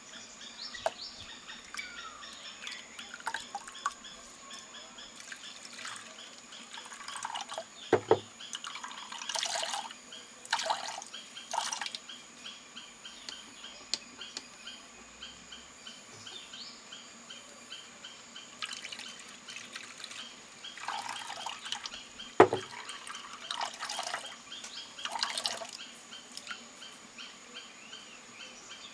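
Grated coconut being squeezed by hand in water to wring out coconut milk: liquid splashing and dripping into a bowl in several short bursts, with two sharp knocks against the bowl or table, about a third of the way in and again later.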